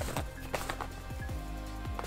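Background music with deep drum hits and held tones.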